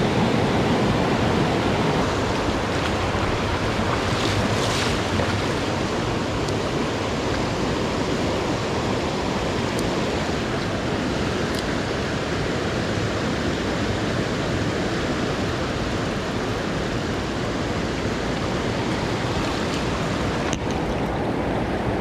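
A rain-swollen mountain stream rushing steadily over rocks, a dense, unbroken wash of water noise.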